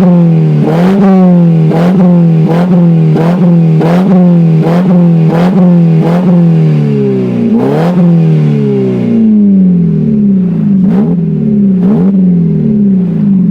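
Car exhaust as the engine is blipped again and again, a sharp rise each time falling back, about two blips a second. The blips space out to about one a second near the end.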